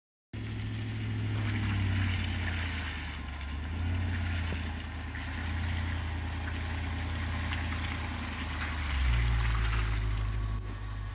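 Land Rover LR3's engine running as it slowly pulls away towing an off-road camper trailer, a low steady hum that rises about nine seconds in, with a rushing noise over it. The sound cuts in suddenly just after the start.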